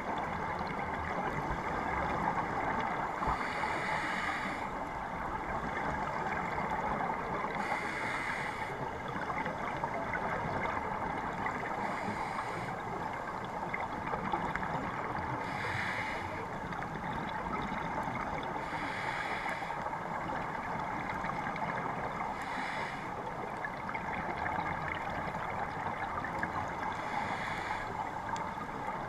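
Scuba regulator exhaust bubbling about every four seconds, each burst lasting about a second, as the diver breathes. Underneath is a steady muffled water rush heard through a GoPro's waterproof housing.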